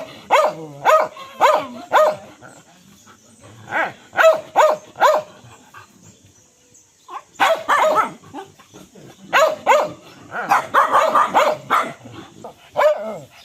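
Dog barking repeatedly in quick volleys of two to four barks, with a pause of about a second and a half near the middle.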